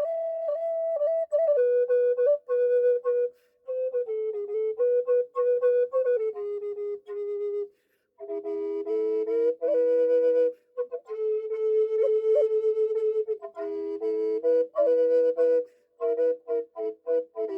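Handmade Native American style drone flute playing a slow melody in phrases, with short pauses between them. A steady lower drone note sounds beneath the melody for much of the time.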